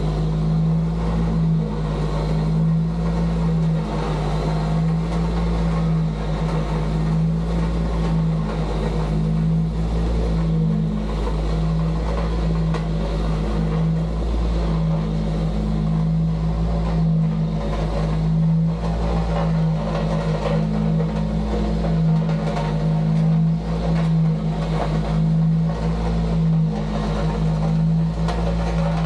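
Heavy earthmoving machine's engine running steadily at a constant speed, a strong low hum that holds throughout.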